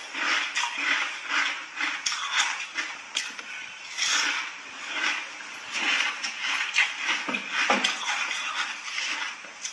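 Close-up chewing of frozen ice cake and a pink biscuit: a quick run of crisp crunches with short pauses between mouthfuls.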